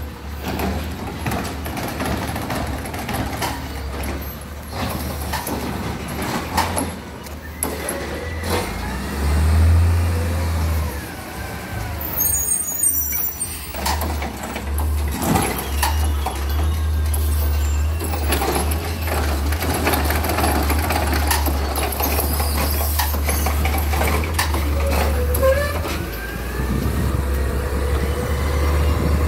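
Autocar ACX garbage truck with a Heil Rapid Rail automated side-loader working the street: heavy engine running steadily, with air-brake hisses and some rising and falling whines.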